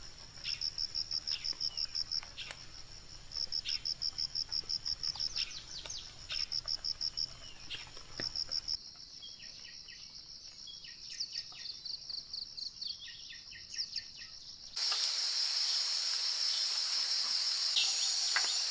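Insects chirping in rapid pulsed trains, mixed with short bird calls that slide down in pitch. The sound changes abruptly twice, about nine and fifteen seconds in, ending in a dense, steady, high insect chorus.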